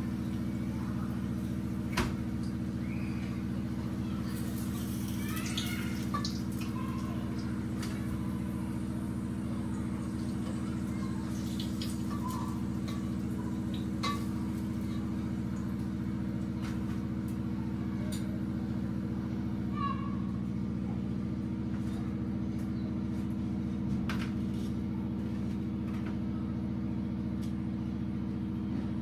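A steady low mechanical hum with a faint sizzle of bhajias (battered potato slices) frying in a pot of hot oil. A few sharp light clicks and knocks of utensils against the pot and plates come about 2, 14, 20 and 24 seconds in.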